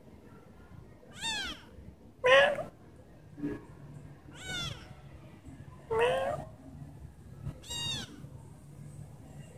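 Young kittens meowing: about six short meows spaced a second or two apart. Higher, falling calls alternate with lower, louder ones.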